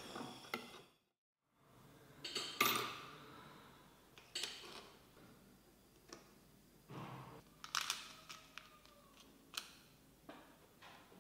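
Scattered light clicks and taps of a small plastic case of steel rotary burs being handled, with one bur drawn out of it. The sharpest click comes about two and a half seconds in.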